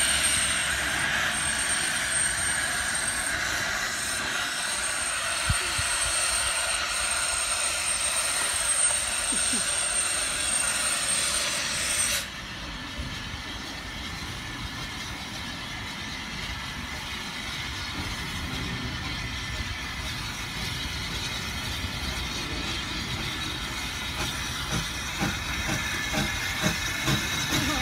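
Steam locomotive Twizell blowing off a loud, steady hiss of steam that cuts off suddenly about twelve seconds in. A quieter rumble and hiss from the engine follows, and short puffs begin near the end as it starts to move off.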